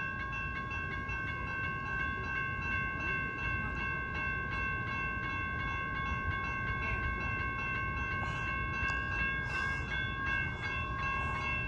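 Amtrak San Joaquins passenger train rolling into the station: a steady low rumble with a constant high-pitched whine held throughout, and a few short hisses near the end.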